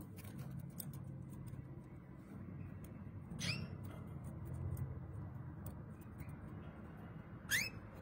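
Canaries in a wire cage giving two short, faint, rising squeaky calls, one about halfway through and one near the end, with light scattered clicks between them.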